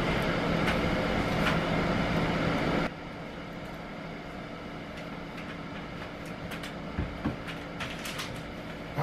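Steady mechanical hum with a few low steady tones, loud for about the first three seconds, then cutting off suddenly to a quieter steady room hum. A few light knocks and clicks follow later on, as bedding and belongings are handled.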